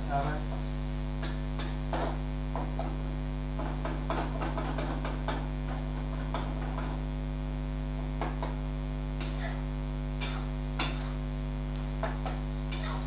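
A steady electrical hum, with a wooden spatula scraping and knocking against a kadhai as thick masala is stirred: irregular light knocks about once a second.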